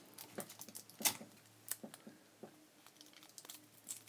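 Faint handling sounds of tape being pressed and wrapped onto the metal jaws of a pair of pliers by hand: a few soft, scattered ticks and rustles over a faint steady low hum.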